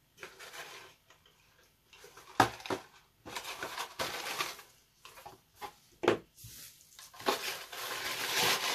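Small cardboard gift box being opened and unpacked by hand: card and packing rustling and scraping, with sharp taps about two and a half seconds in and again about six seconds in.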